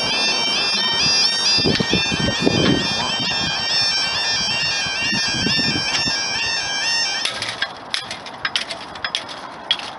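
UK level crossing warning alarm sounding a loud, high two-tone warble as the road barriers come down, warning of an approaching train. It cuts off about seven seconds in, once the barriers are down, and a run of sharp clicks and knocks follows.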